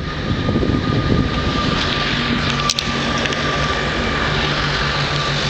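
Double-deck RER C electric multiple unit running past close below into the station: a steady rumble of wheels and running gear with a thin, constant high whine that stops just before the end, and one sharp clack about halfway through.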